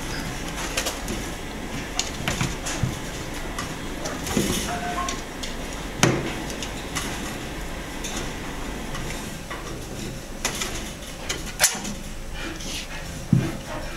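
Wire cage bars rattling and clicking as a kitten paws and climbs at them. The knocks come irregularly, with the sharpest about halfway through and two more near the end.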